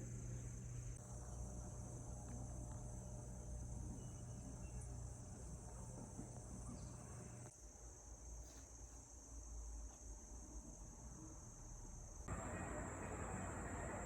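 Crickets chirring steadily, a continuous high-pitched trill over a low background hum, with the background changing abruptly twice.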